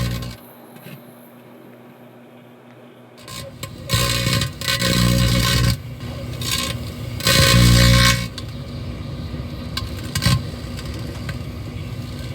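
Microwave oven running with a loud low electrical hum that cuts off about half a second in. It comes back in two loud stretches, then a steadier, quieter noise with some scraping follows.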